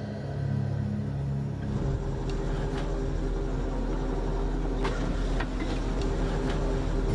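An engine running steadily with a low hum that strengthens about two seconds in, with a few faint knocks.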